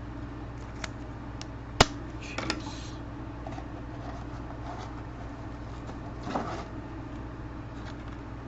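Trading cards being handled on a table: a sharp click about two seconds in, a few lighter ticks, and two short rustling scrapes of card and plastic, over a steady low hum.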